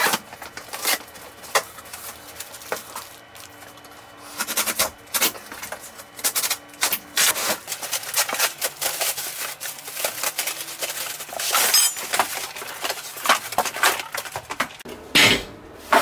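Cardboard shipping box being opened and unpacked: irregular rustling, scraping and knocking of cardboard and plastic wrapping as it is handled.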